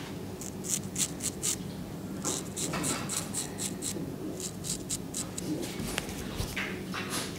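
Turkish straight razor scraping beard stubble from the jaw and neck in short, quick strokes: a scratchy rasp about four or five times a second, in a few separate runs.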